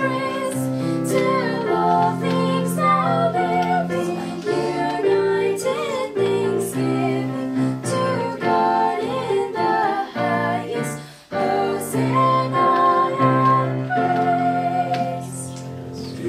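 Three girls singing a Christian song together as a vocal trio over a steady instrumental accompaniment, with a brief break between phrases about eleven seconds in.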